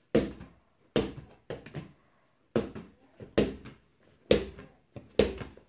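Rubber playground ball bouncing repeatedly on floor mats and being caught: about ten bounces in an uneven rhythm, each a sharp slap with a short ringing tail.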